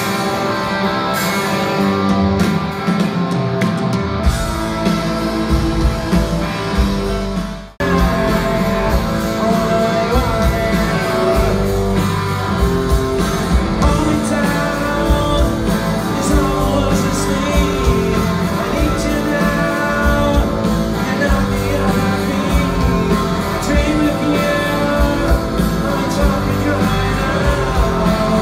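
Live rock band (electric guitars, bass and drums) playing loudly in a concert hall, heard from among the audience. About eight seconds in, the sound drops out for a moment and a fuller passage starts.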